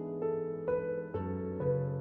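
Background music: plucked notes, about four in two seconds, over held lower tones.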